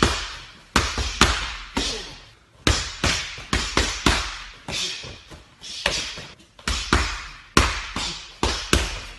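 A rapid series of hard blows landing, typical of fight-scene punch and kick hits, about two a second at an uneven pace, each a sharp smack that dies away quickly.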